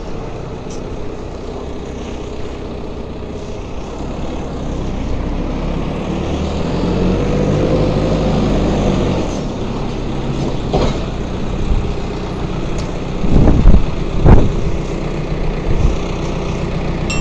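Farm tractor engine running steadily, swelling in level between about six and nine seconds in. Two loud low thumps come near the end.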